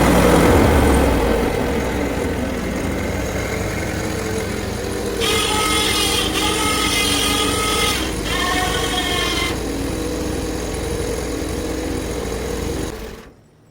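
Portable bandsaw sawmill's engine running steadily, with a high pitched whine over it from about five to nine and a half seconds in; the sound cuts off abruptly near the end.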